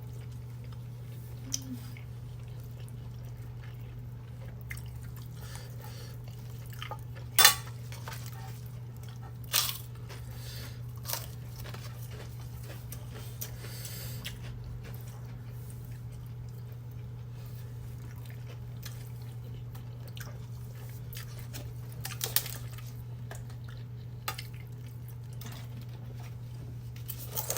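Kitchen utensils and dishes clinking and knocking now and then during food preparation, with about seven sharp clinks spread out; the loudest comes about seven seconds in. A steady low hum runs underneath.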